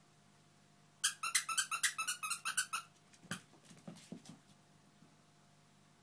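A dog's squeaky toy squeezed in a quick, even run of about ten high-pitched squeaks, then a thump and a few short, lower sounds about half a second later.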